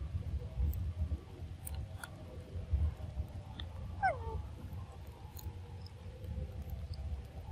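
One short monkey call about four seconds in, falling sharply in pitch, over a low steady rumble with a few faint clicks.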